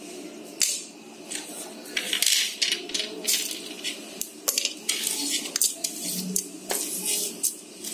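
Whole spices (cinnamon stick pieces, star anise, bay leaves) dropped into the metal inner pot of an electric pressure cooker. They make a string of irregular light clicks and rattles as they hit the pot, from about half a second in.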